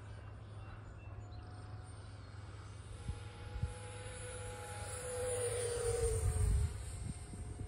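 Radio-controlled model airplane flying past: a steady propeller hum that grows louder and drops in pitch about six seconds in as it passes.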